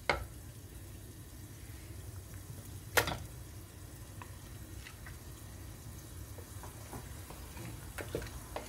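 Wooden spoon stirring masala and raw chicken pieces in an aluminium pressure cooker over a soft, steady sound of the paste cooking, with small knocks of the spoon against the pot. One sharp knock about three seconds in.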